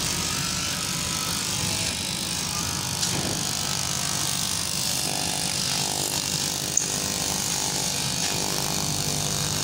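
Electric straight-knife cloth cutting machine running steadily, its motor-driven upright blade moving up and down as it cuts through a thick stack of fabric layers.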